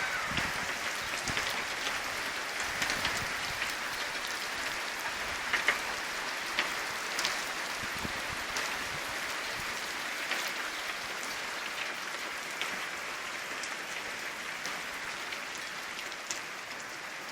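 Rain falling steadily, an even hiss with scattered sharper drop taps.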